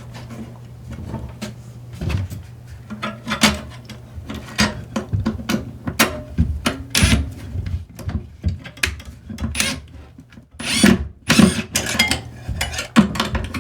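Hand work on plumbing: irregular clicks, knocks and rubbing of tools against PVC drain pipe and wood framing, as a screw is worked loose and the pipe is shifted.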